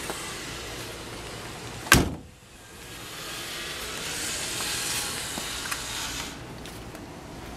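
A door slams shut once, sharply and loudly, about two seconds in. After it comes a high hiss that builds and then cuts off suddenly a little past six seconds.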